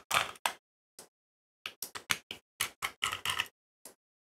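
Small screwdriver ticking and scraping against Phillips screws as they are backed out of a handheld radio's circuit board and aluminum frame. The sound is a string of short clicks in clusters, and they stop near the end.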